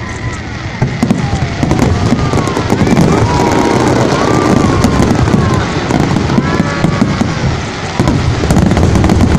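Aerial fireworks display: a continuous run of shells bursting in booms and crackles, with crowd voices underneath.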